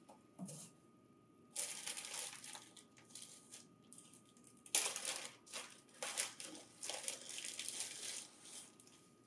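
Clear plastic packing bag crinkling and rustling in irregular bursts as a printer hard disk is unwrapped, with a soft thump about half a second in.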